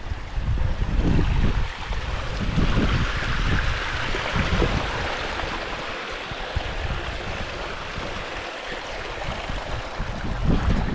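Wind buffeting the microphone in gusts, with a small mountain stream trickling over rocks beside the path. The water's hiss swells a couple of seconds in and fades again.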